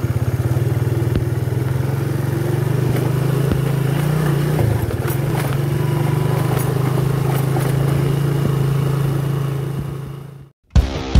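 Motorcycle engine running steadily as the bike is ridden, with a brief rise and dip in pitch about halfway and scattered light knocks. It fades out near the end and music begins.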